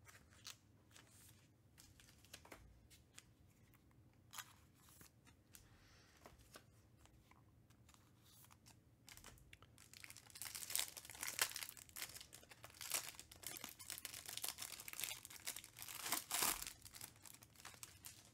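A trading-card pack's plastic wrapper being torn open and crinkled: a dense crackling that starts about ten seconds in and lasts some seven seconds. Before it come only a few faint clicks of cards being handled.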